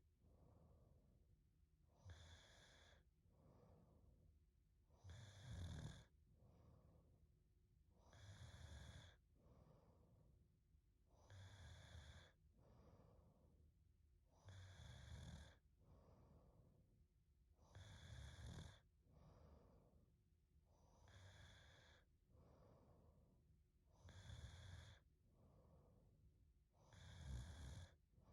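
A young woman snoring softly in her sleep: a regular snore about every three seconds, nine in all, each followed by a quieter breath out.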